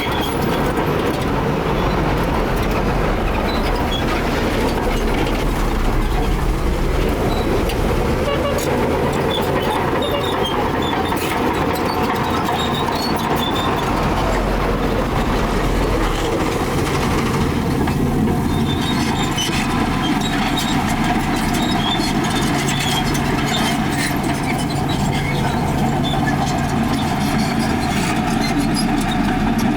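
Heavy diesel earthmoving machinery running steadily, a deep engine rumble; the engine note shifts a little past halfway through.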